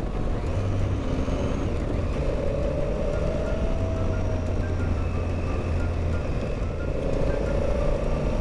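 Adventure motorcycle engine running steadily at road speed, heard from the rider's seat with wind noise. A higher whine comes up twice and fades.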